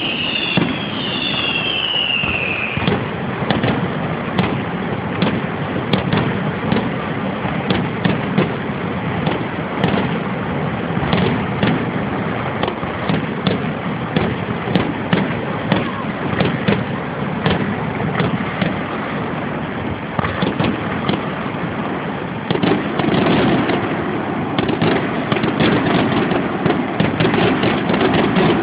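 Aerial fireworks: a dense, continuous barrage of shell bursts and crackling, with several falling whistles in the first couple of seconds. The barrage grows louder about three quarters of the way through.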